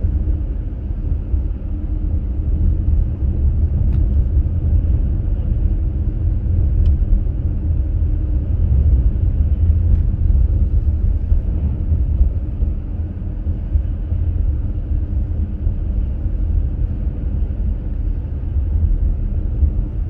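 Steady low road rumble inside the cabin of a Subaru Crosstrek driving on a snow-covered road on Blizzak winter tires.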